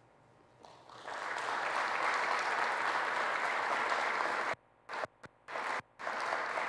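Audience applauding at the end of a talk. The applause swells in about a second in, and near the middle the sound cuts out abruptly to near silence several times, each for a fraction of a second.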